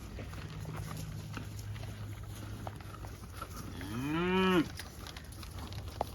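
A single moo from beef cattle, one call under a second long that rises and then falls in pitch, about four seconds in, over a low steady hum.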